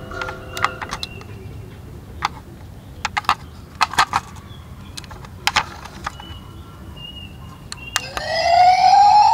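Plastic clicks and snaps from a toy fire truck's parts being handled and fitted together, then about eight seconds in the truck's electronic siren starts, a loud wail rising in pitch.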